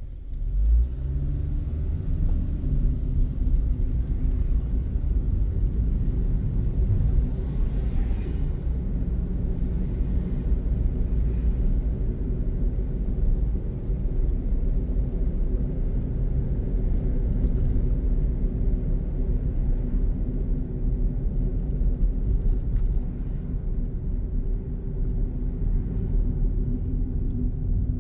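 Car engine and road rumble heard from inside the cabin: the car pulls away about half a second in, the engine note rising, then it runs along steadily.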